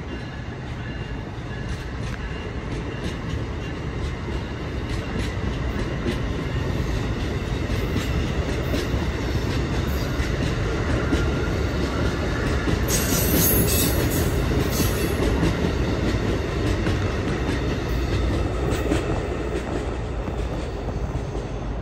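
A train rolling through the station, its wheels clicking over rail joints above a steady rumble. The sound builds to its loudest just past halfway, where a brief high hiss or squeal comes in, then eases off.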